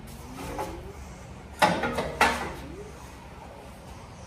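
Metal clanking as a steel long-tube header is worked into place in the engine bay: two sharp clanks about half a second apart near the middle, with short ringing, over a faint low hum.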